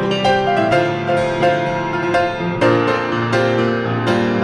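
Grand piano playing a worship song accompaniment, with chords struck about every three-quarters of a second.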